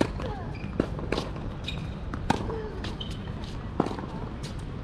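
Tennis ball struck by rackets and bouncing on a hard court during a rally, opening with the serve: sharp pops at irregular intervals, the serve the loudest.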